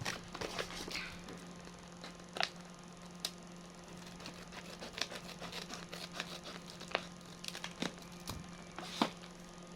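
Sparse light crinkles and ticks from a sealed plastic snack bag being handled and worked open.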